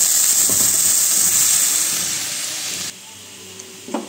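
Freshly added raw green-pea paste sizzling in hot oil in a kadhai, a loud steamy hiss as the water in the paste hits the hot oil. The hiss fades over about three seconds, then cuts off suddenly.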